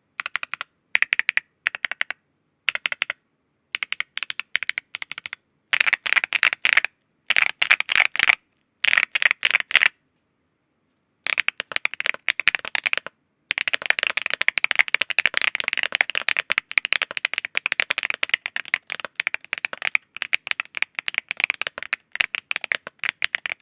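Yunzii AL80 mechanical keyboard with Cocoa Cream V2 linear switches being typed on: fast trains of keystroke clicks in short bursts separated by brief silences, then a long run of continuous rapid typing in the second half.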